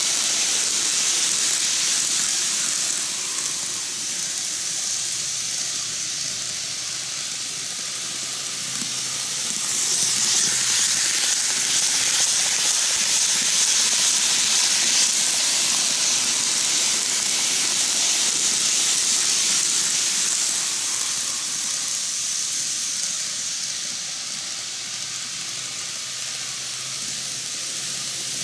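N-gauge model Romancecars (Odakyu 30000 EXE and 50000 VSE) running on sectional track, giving a steady high hiss of small metal wheels on the rails. It grows louder about ten seconds in as a train passes close by, eases off again after about twenty seconds, and rises once more at the very end.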